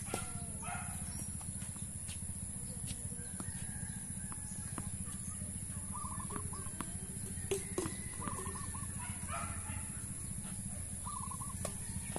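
Tennis balls struck by rackets, a few sharp pops with the clearest pair about seven and a half seconds in, over birds calling in short repeated chirps several times and a steady low rumble.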